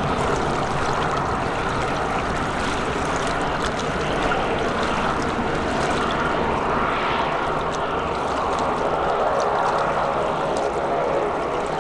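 DHC-3 Turbo Otter floatplane's turboprop engine and propeller running steadily as it taxis on the water, with water rushing and splashing off the floats.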